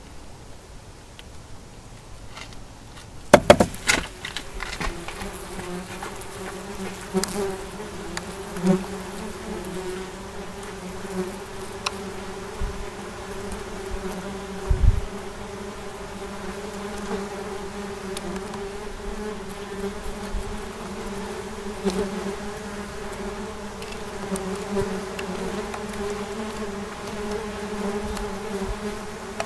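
A few sharp knocks about three seconds in, then wasps buzzing at their paper nest: a steady low hum with a second tone above it that slowly grows stronger.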